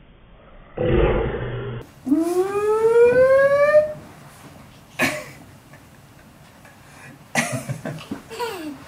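A baby's long cry, rising steadily in pitch for about two seconds. A sharp knock follows, then scuffling near the end.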